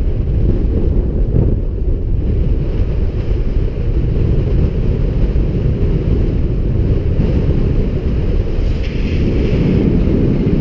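Strong wind buffeting the microphone: a loud, steady, gusty rumble.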